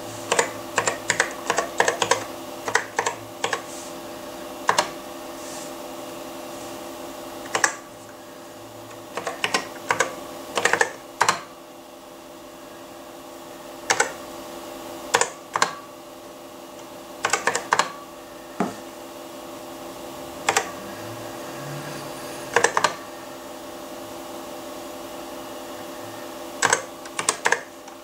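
Keys on a Macintosh Plus keyboard's numeric keypad being pressed: quick runs of clicky keystrokes with pauses of a few seconds between them, over a steady faint hum.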